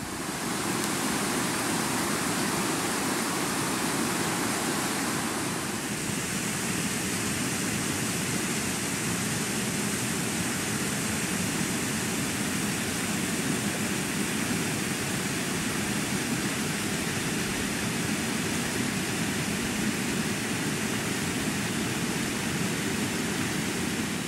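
Flash-flood water rushing down a rocky streambed, a steady, unbroken rush.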